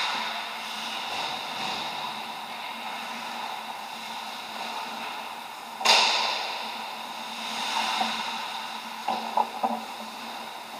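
Ice rink game sound of skates on ice over a steady hum. About six seconds in comes a sudden loud scraping hiss that fades over a second, and a few short sharp clacks follow near the end.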